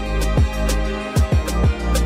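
Music with a beat: deep kick drums that drop quickly in pitch, a held bass note underneath and sharp hits on top.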